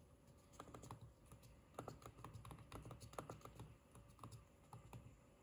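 Faint, irregular key clicks of typing on an HP 200LX palmtop's small keyboard.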